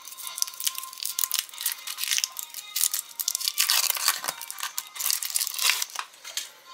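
Thin foil wrapper crinkling and tearing as it is peeled off a small chocolate car, in irregular crackly rustles that are busiest in the middle and die away near the end.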